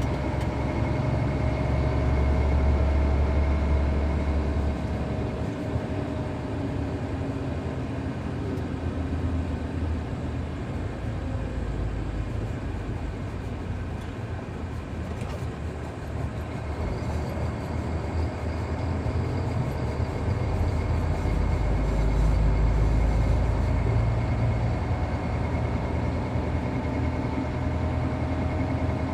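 Zoomlion long-boom excavator's diesel engine running under working load, swelling and easing as it works, with a steady high tone over the engine hum.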